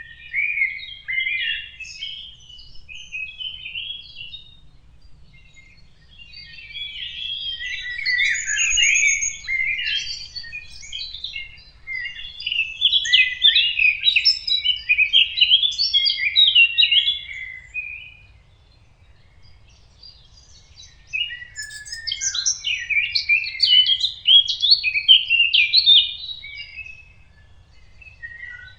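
A songbird singing long, fast, varied warbling phrases, three stretches of song with brief pauses between them, about six and three seconds in. A thin high whistle cuts in near the first phrase.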